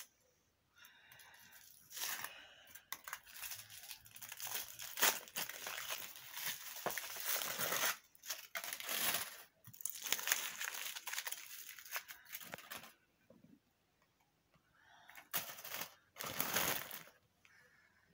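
Easter egg wrapping being handled, crinkled and torn in long stretches of rustling, then a couple of short crinkles near the end.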